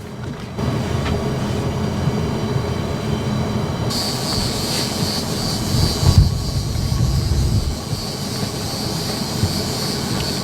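Boat engine running steadily underway, a low rumble with a high whine joining about four seconds in.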